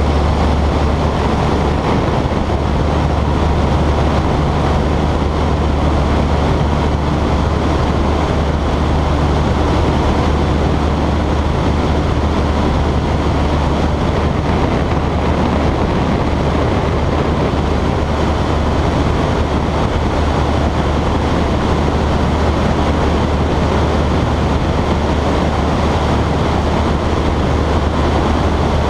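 Piper Cub's engine and propeller running steadily at takeoff power through the takeoff roll, liftoff and climb: a low drone under a steady rush of air.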